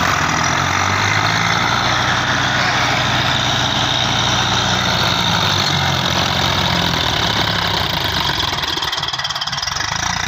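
Diesel tractor engines running steadily under load: a Sonalika DI-35 pulling a second tractor and its paddy-laden trolley that is stuck in soft field ground.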